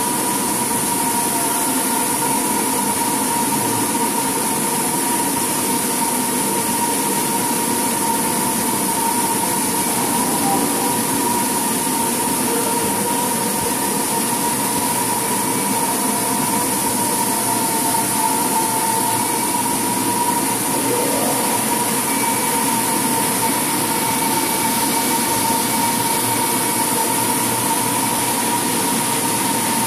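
Steady drone of a running machine motor with a constant high whine, unchanging throughout.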